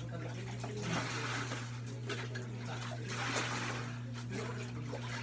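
Water splashing and sloshing in a plastic basin during hand washing, in bursts about a second long, over a steady low hum.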